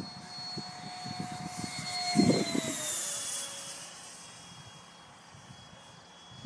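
Electric ducted-fan model jet (a FlyFly Mirage 2000) flying past overhead: a steady high fan whine that drops in pitch about three seconds in as it passes, then fades. Low rumbling of wind on the microphone, with a louder low thump about two seconds in.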